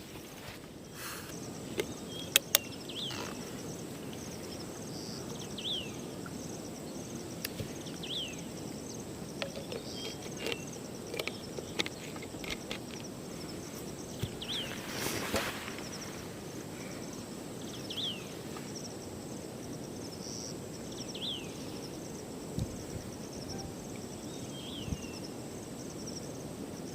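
Forest ambience: a steady low rush of background noise, with a bird repeating a short falling call about every three seconds. Scattered clicks and knocks, and one louder rustling burst about halfway through.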